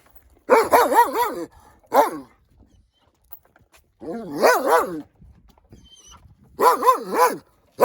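An angry dog barking in quick volleys of three to five barks (about half a second to a second in, four seconds in, and near the end), with a single bark around two seconds in and pauses of a second or more between volleys.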